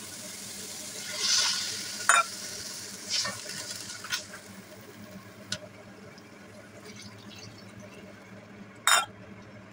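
Water poured into a hot wok of frying beef tripe, hissing as it hits the oil about a second in, then the sizzle dies down as the pan fills. A few sharp knocks of utensils against the pan, the loudest near the end.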